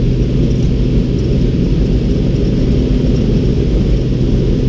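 A light aircraft's engine and propeller running steadily at takeoff power during the takeoff roll on a grass strip: a loud, even drone with a low steady hum.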